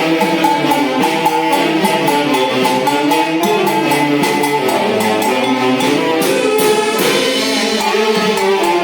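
Tunantada, a Peruvian dance tune, played by a band-orchestra, with a steady percussive beat under the melody.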